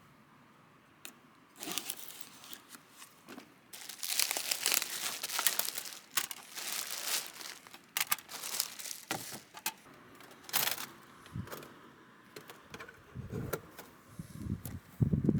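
Crinkling and rustling of something being handled, in irregular bursts with sharp clicks, busiest from about four to eight seconds in; heavier dull thuds come near the end.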